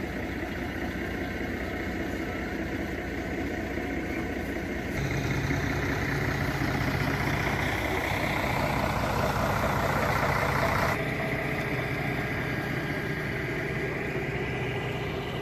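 A large vehicle's engine running steadily, getting louder about five seconds in and dropping back about eleven seconds in.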